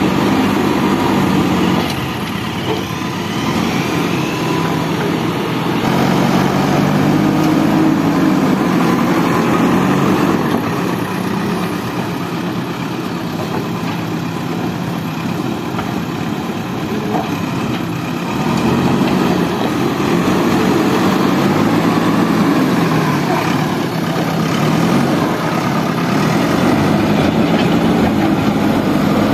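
JCB backhoe loader's diesel engine running under load while the front loader works, its pitch and loudness rising and falling as the operator revs it for the digging and lifting.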